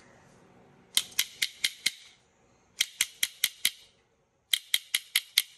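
Three quick runs of five sharp snapping clicks each, with a hiss behind them: an added title sound effect.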